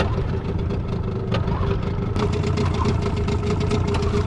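Small outboard motor idling steadily, with an even fast ticking coming in about two seconds in.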